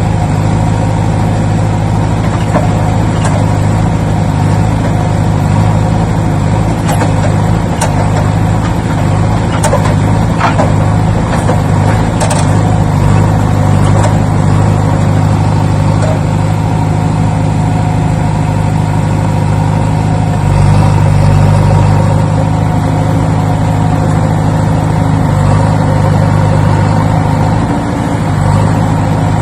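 An engine running steadily at idle, with a few light clicks in the first half; it gets a little louder about twenty seconds in.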